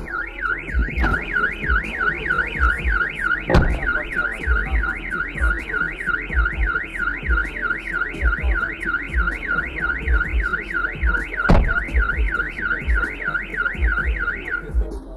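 Car alarm sounding a fast electronic warble that rises and falls three to four times a second, stopping near the end. Two sharp knocks break in, one about four seconds in and one near twelve seconds.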